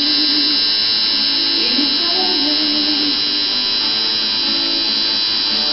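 Electric tattoo machine buzzing steadily as it inks the back of a hand, over background music.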